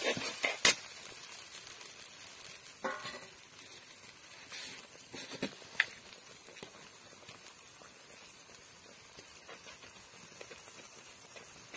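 Tomato chutney sizzling faintly in a kadai, with a few clicks and scrapes of the ladle against the pan; the sharpest clicks come within the first second.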